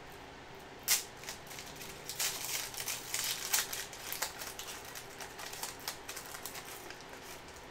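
Wrapper of a trading card pack being torn open and crinkled by hand: a run of small crackles and clicks, with a sharper click about a second in.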